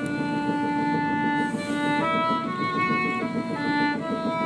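Background music: a slow melody of long held notes that change every half second to a second.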